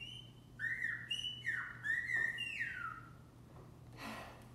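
Silbo Gomero, the whistled language of La Gomera, played through laptop speakers: a run of high whistled notes that glide up and down in short phrases and stop about three seconds in.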